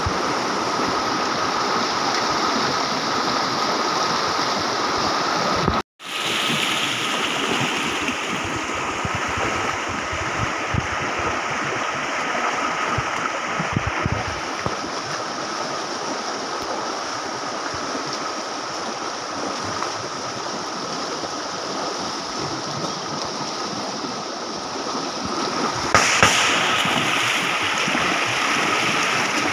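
A shallow, rocky jungle stream rushing steadily as people wade through it, with a thin steady high tone over the water. The sound cuts out for an instant about six seconds in, and it grows louder and brighter for the last few seconds.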